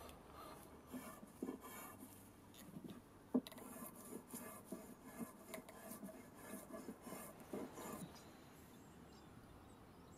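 Drawknife shaving green walnut at a shaving horse: a run of faint, short rasping strokes that stops about eight seconds in.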